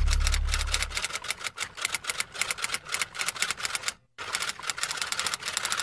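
Typing sound effect: a rapid run of typewriter-like key clicks, several a second, breaking off briefly about four seconds in. A low music note fades out during the first second.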